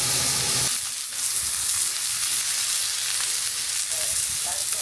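Ribeye steak searing in a hot Lodge cast iron skillet: a steady sizzle of meat frying in fat.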